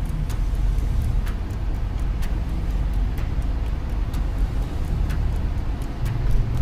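Cabin noise of a car driving in traffic: a steady low engine and road rumble, with a light tick about once a second.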